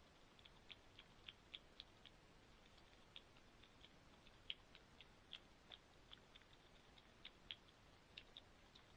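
Faint, irregular high-pitched clicks, a few a second and varying in strength, over near silence.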